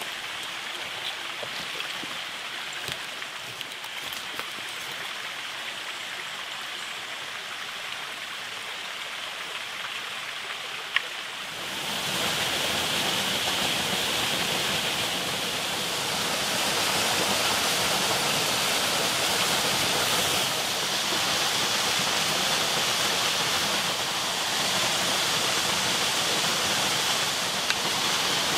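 Steady rushing of a stream. It is quieter for the first dozen seconds, with a few light clicks and one sharp click just before it grows louder, then continues louder to the end.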